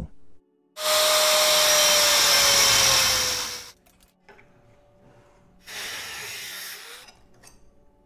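Angle grinder cutting steel angle iron. It runs loud for about three seconds with a whine that slowly falls in pitch, then stops. A second, quieter burst of about a second and a half follows.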